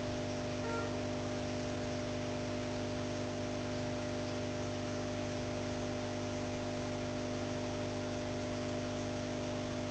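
Steady electrical hum made of several held tones, under a constant hiss.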